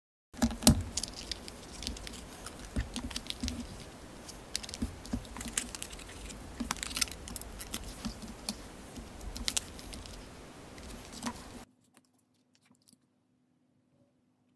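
Close-up handling of a metal enamel pin, its rubber clasp and a cardboard backing card as the pin is pushed through and fastened: a run of small clicks, taps and rubbing, the loudest tap about half a second in. It cuts off suddenly near the end.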